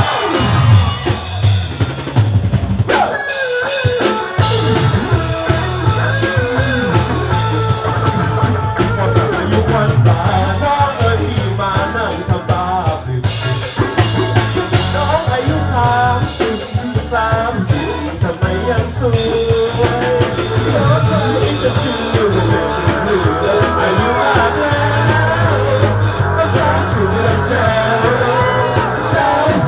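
Rock band music with a drum kit, bass and a singing voice. The low drums drop out briefly about three seconds in, then the music carries on.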